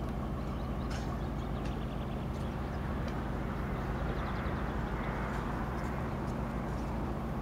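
Diesel locomotive engine running with a steady low drone as the locomotive moves slowly through the yard.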